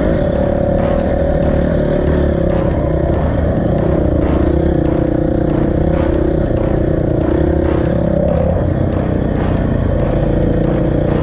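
Motorcycle engine running steadily under way, its note shifting slightly about four seconds in and again about eight seconds in.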